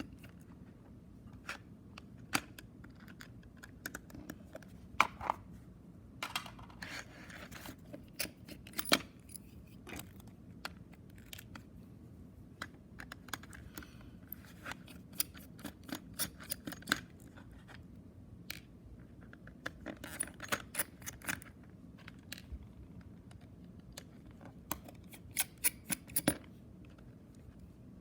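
Irregular small clicks, taps and scrapes of a plastic compact cassette shell and a small screwdriver being handled while the cassette is taken apart, with quick runs of clicks about two-thirds of the way in and near the end.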